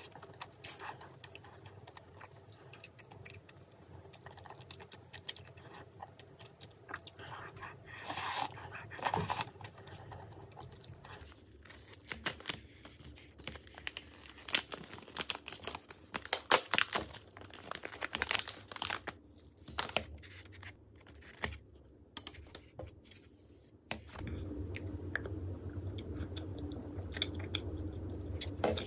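A small paper chocolate package being torn open and handled, with a run of sharp crinkles and clicks through the middle. Before it come soft spoon-and-eating sounds; near the end a steady low hum comes in as a fork starts cutting into the chocolate in its plastic tray.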